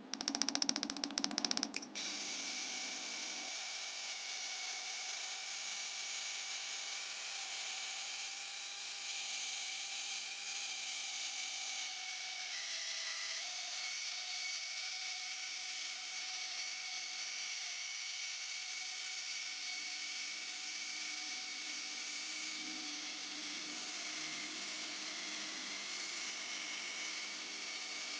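A rapid rattle of clicks for about two seconds, then an electric power tool running steadily with a high whine and a hiss.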